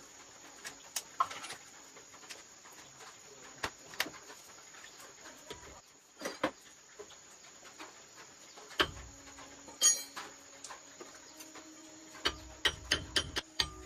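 Scattered light clicks and knocks of tools and metal parts being handled, with a quick run of clicks near the end, over a faint steady high insect-like buzz.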